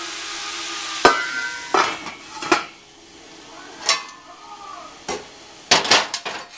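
Veal shanks and vegetables sizzling in a stainless steel sauté pan, then a run of sharp metal clinks and clanks that ring briefly as the tongs are taken out and the lid is set on. The sizzling is quieter once the lid is on, and a few more clinks come near the end.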